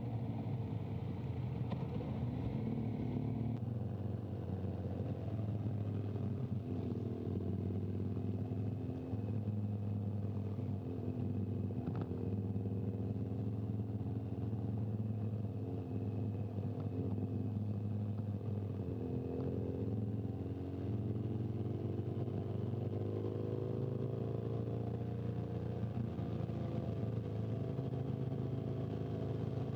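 Motorcycle engine running close by, its revs rising and falling, with a steady low hum beneath. The sound changes abruptly about three and a half seconds in.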